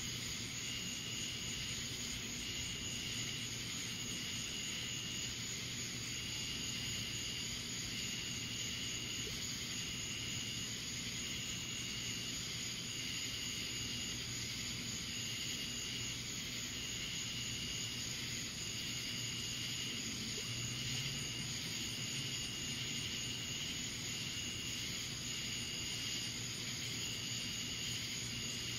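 Night-time insect chorus: a steady high-pitched trill with a high chirping call repeating about every two seconds, over a low steady hum.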